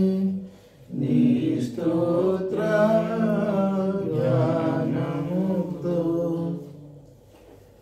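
A man singing a Telugu offertory hymn unaccompanied: slow, long-held notes with a wavering vibrato, a short break for breath about half a second in, and the last phrase fading out near the end.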